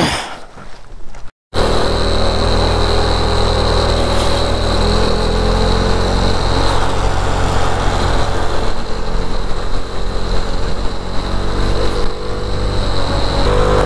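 Bajaj Dominar 400's single-cylinder engine running steadily at cruising speed, heard from the rider's seat with wind rushing over the microphone. A short quieter stretch near the start ends in a brief silent gap before the riding sound begins.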